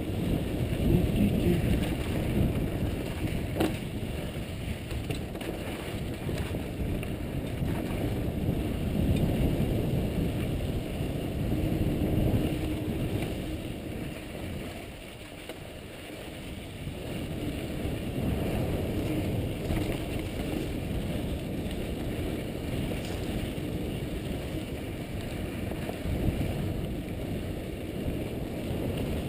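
Mountain bike riding fast down a rough dirt and rock singletrack, heard from a helmet camera: wind rumble on the microphone over the tyres and the bike rattling on the rough ground. It eases briefly about halfway through.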